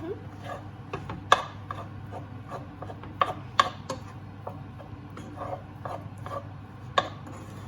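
A utensil scraping and knocking against a frying pan while rice is stirred, with a few sharp knocks spread through, and a steady low hum underneath.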